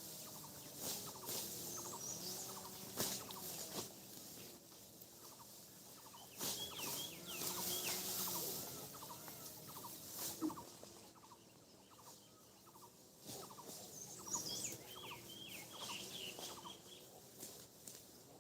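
Small birds chirping in quick repeated notes, over scattered crackling clicks and a rustling hiss.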